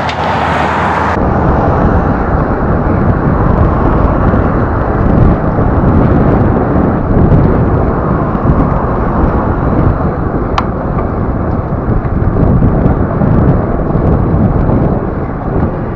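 Loud, steady rumble of wind buffeting a budget action camera's built-in microphone, drowning out everything else.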